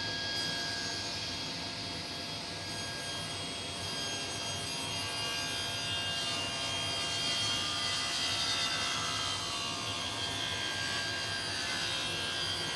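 Table saw running and ripping a hardwood board along the fence: a steady whine over the noise of the blade cutting, with the tone wavering in the middle as the wood passes through the blade.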